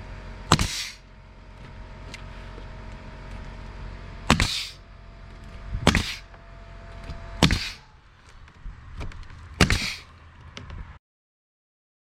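Nail gun firing five times, driving nails into window trim: each shot a sharp crack followed by a short hiss. The sound cuts off abruptly about a second before the end.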